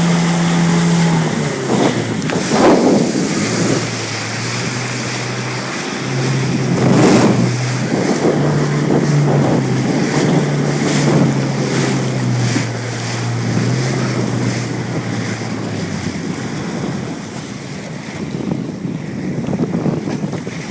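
Jetski engine running, its pitch stepping up and down as the throttle changes, over wind and water noise, with two loud rushes of noise about two and seven seconds in. The engine stops about sixteen seconds in, leaving wind and lapping water.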